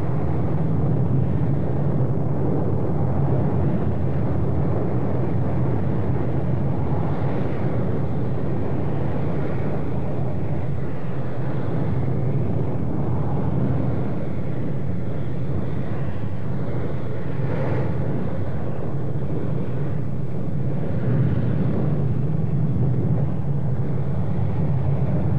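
Lava fountains erupting from a lava lake: a steady, deep rushing noise, with one brief sharper burst about two-thirds of the way through.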